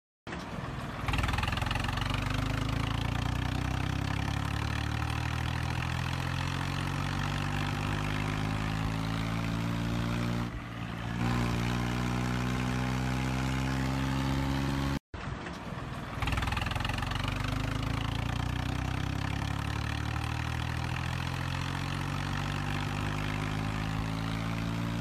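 John Deere 5210 tractor's three-cylinder diesel engine running steadily under load as it pulls a cultivator through dry soil, its note drifting slowly up and down. The sound cuts out for a moment about fifteen seconds in.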